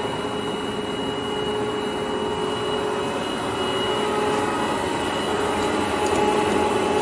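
Jin Ling 25180G gap bed engine lathe running under power, its geared headstock and drive giving a steady whine over mechanical noise. The whine eases a little in the middle and grows stronger again near the end.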